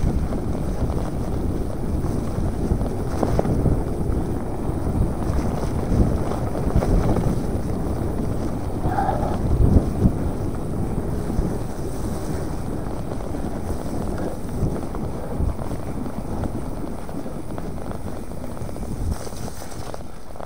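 Wind buffeting an action camera's microphone during a mountain bike ride, over a steady low rumble from the bike on the trail, with a few knocks from bumps.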